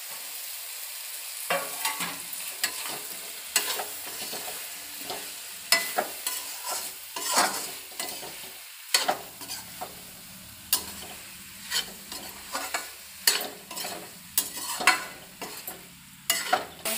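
Fried jackfruit and potato pieces sizzling in masala in a metal kadhai, with a steady frying hiss. From about a second and a half in, a spatula stirs them, scraping and clicking irregularly against the pan.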